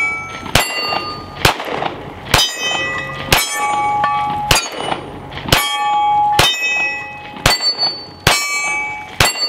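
Springfield Hellcat 9mm subcompact pistol fired ten times at a steady pace of about one shot a second. Each shot is followed by the ring of a hit steel target, the pitch changing as different plates are struck.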